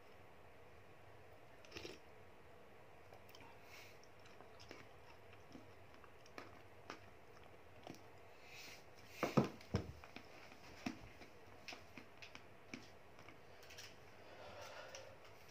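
Quiet eating sounds: a wooden spoon scraping and clicking in a plastic food container, with soft chewing. A cluster of louder clicks comes about nine seconds in.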